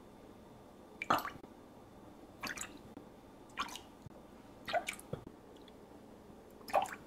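Spoonfuls of soy sauce and cooking sake tipped from a metal tablespoon into a glass measuring jug, each landing with a short splash, five times in all.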